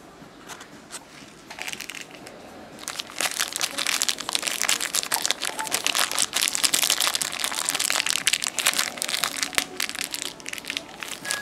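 A crinkly wrapper crackling and crumpling as fingers tear it open and peel it off a small toy figure. The crackling starts loud about three seconds in, after a few seconds of softer handling.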